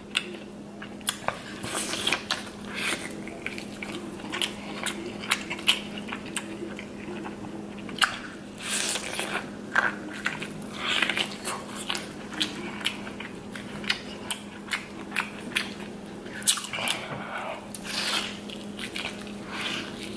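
Close-miked eating: a person biting and chewing corn on the cob drenched in buttery sauce, with wet mouth clicks and smacks at irregular moments throughout.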